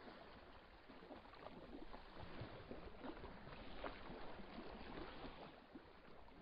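Near silence: a faint, even hiss of background noise with a few soft ticks.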